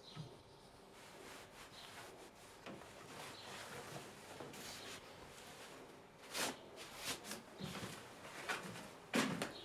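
Cotton bed sheet and wool blanket rustling as they are tucked in and smoothed flat by hand over a mattress. A few louder swishing strokes come in the second half.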